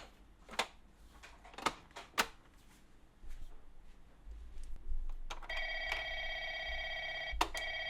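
Several sharp plastic clicks, then, about five and a half seconds in, a Plarail toy train set's electronic bell starts a steady, continuous ring like a station bell.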